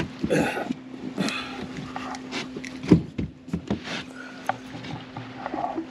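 Knocks and thumps of handling in a fishing boat as a freshly caught white bass is dealt with, the loudest thump about three seconds in, over a steady low hum.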